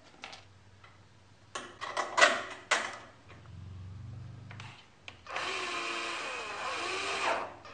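A few light metal clanks from parts being handled, then a cordless drill runs for about two seconds, its speed wavering as the bit is worked into the saw's steel front rail.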